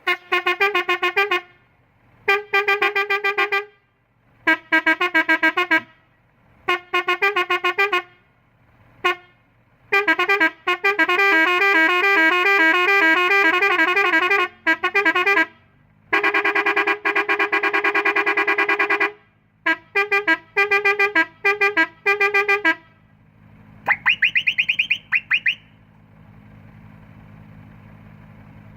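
Four-tone melodic air horn (Nuri Alco) playing short tune phrases in repeated bursts, then longer runs of changing notes. Near the end a whistle horn gives several quick rising whistles over a low steady hum.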